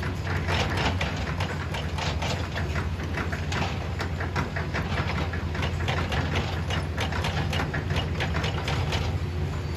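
Hitachi hydraulic excavator's diesel engine running steadily, with frequent short clanks and crunches of metal, stone and soil as the machine works the track with its bucket.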